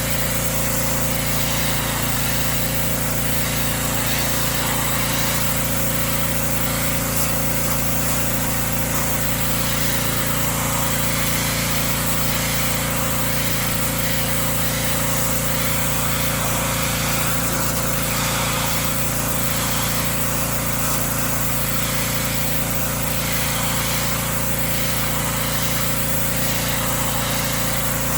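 Small gasoline engine of a pressure washer running steadily under load while its wand sprays water, a constant engine drone with a dense spray hiss over it.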